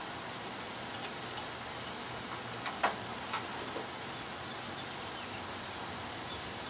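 A handful of short, light clicks and taps from a ratchet and socket working bolts loose on the engine, scattered between about one and four seconds in, over a steady hiss.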